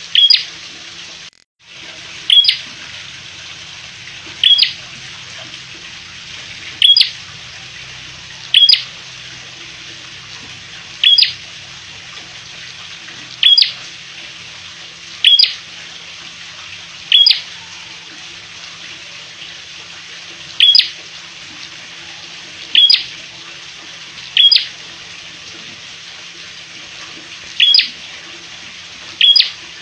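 Caged red-headed prenjak giving a short, sharp, high chip call over and over, about once every two seconds, over a steady hiss.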